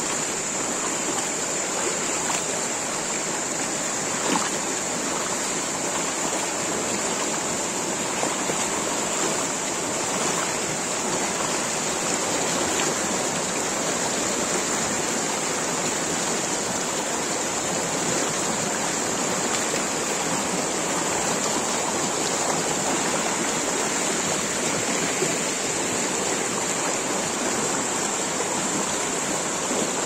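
Shallow, rocky stream rushing and splashing over stones and small cascades, a steady full rush of water. A steady high-pitched hiss or whine sits above it.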